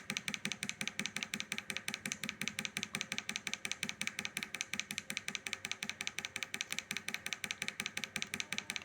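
A small tactile (tact) micro switch on a circuit board clicking rapidly and evenly as its plastic button is struck again and again with a finger, several presses a second. The switch has just been sprayed with WD-40 and is being worked to clear dust and oxidation from its contacts after it showed no continuity.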